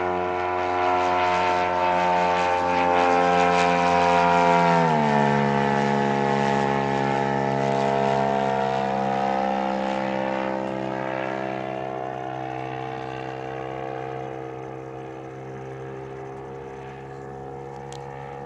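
Engine and propeller of a giant-scale 45% Decathlon RC airplane in flight, a steady buzzing drone. About five seconds in its pitch drops sharply, and the sound then slowly fades.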